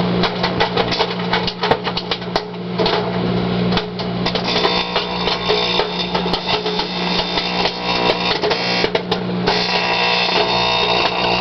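Sharp Carousel 1100-watt microwave humming as it runs, with popcorn popping rapidly inside and crackling from electrical arcing in the oven cavity. The crackle turns denser and hissier about nine and a half seconds in.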